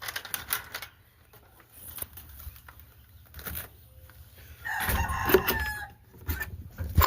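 Rooster crowing once, about five seconds in: a single crow of a bit over a second that falls in pitch at the end. Short scuffing and knocking sounds come before it.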